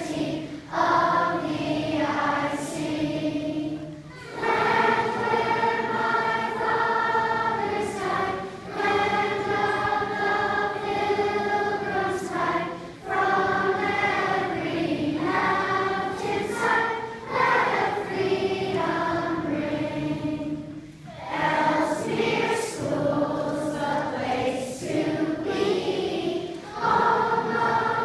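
A large group of schoolchildren singing a song together in long, sustained phrases, with short breaks between them every few seconds.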